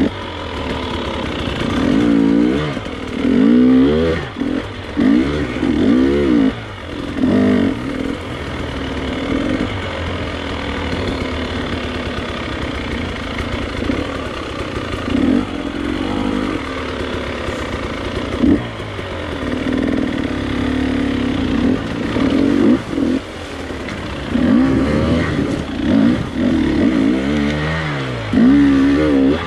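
Gas Gas two-stroke dirt bike engine, heard from the rider's seat, revving up and down in quick throttle bursts, with steadier stretches of running in the middle.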